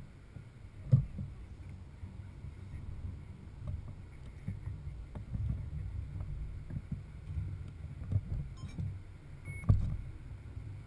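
Wind buffeting the microphone: a gusty low rumble, with two sharper thumps, one about a second in and one near the end.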